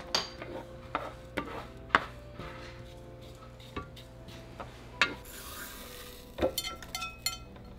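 Sesame seeds toasting in a dry nonstick frying pan, with scattered sharp ticks. About five seconds in, the seeds are poured from the pan into a plastic blender cup with a brief hissing rush, followed by a few ringing knocks of the pan and cup.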